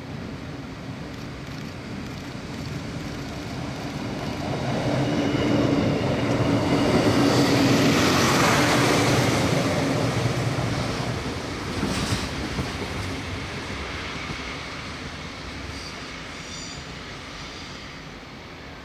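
DB class 628 diesel multiple unit pulling away and passing: its diesel engine hum and rail noise swell to a peak in the middle and then fade as it moves off. There is one sharp clack of the wheels about twelve seconds in, and a faint high wheel squeal near the end.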